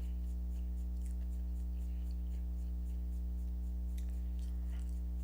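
Faint crunching and small crackling clicks of someone chewing crispy fried fast food, over a steady low electrical hum that is the loudest thing heard.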